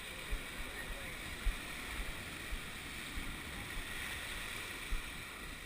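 Steady rush of sea water and wind around a surf boat on the water, with a few irregular low thumps.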